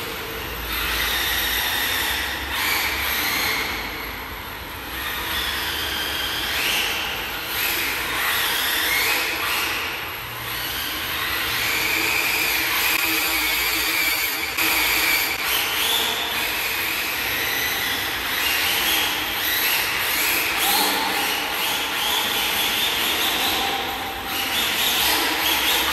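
Electric radio-controlled drift car running and drifting on concrete: its motor whines up and down in pitch with the throttle, over and over, with the hiss of tyres sliding.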